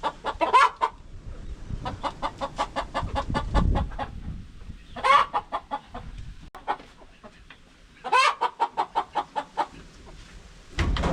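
Several hens clucking in fast runs of short pulsed calls, broken by louder drawn-out cackles about half a second in, around five seconds and around eight seconds.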